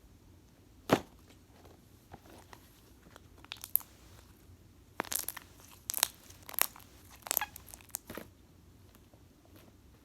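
Butter slime being pressed and worked by hand, giving off short sticky clicks and pops: one sharp pop about a second in, then irregular clusters of crackly clicks through the middle and latter part.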